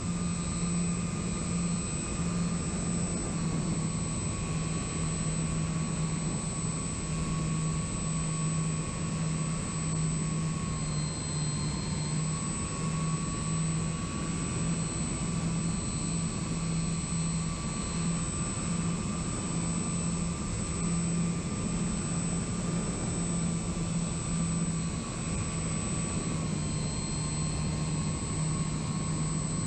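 Electric motors and propellers of an RC model airplane, heard through its onboard FPV camera: a steady drone with a high whine and rushing wind, its pitch shifting slightly a few times.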